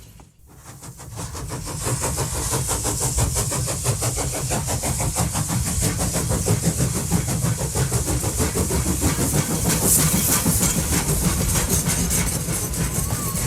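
An engine running steadily with a rapid pulsing, fading in just after the start.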